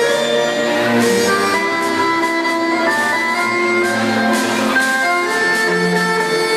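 Instrumental dance music playing steadily, with long held notes.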